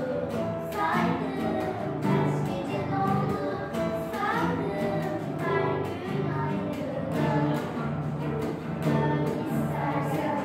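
Schoolgirls singing a song together over their own instrumental accompaniment, the sung melody carried over sustained low accompanying notes.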